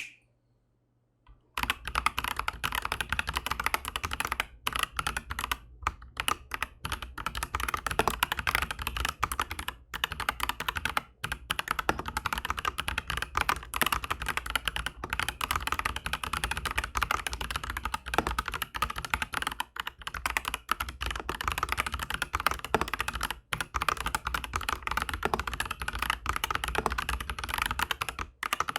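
Aflion AF82 mechanical keyboard with Aflion Shadow tactile switches on an FR-4 plate, typed on fast and steadily. The keystrokes start after about a second and a half of silence and run on with only short pauses.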